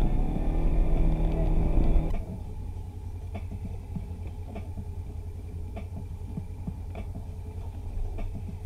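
Polaris RZR side-by-side engine running under load, then dropping abruptly about two seconds in to a much quieter, steady low engine sound with faint ticks about once a second.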